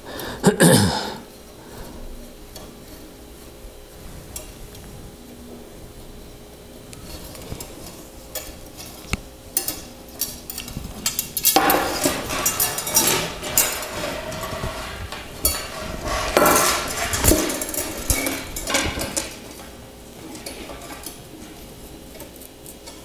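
Loose steel bicycle spokes clinking and rattling against each other and the rim as they are worked out of the hub of a wheel being disassembled. A few scattered clicks come first; the jingling grows dense from about halfway through, then eases off near the end.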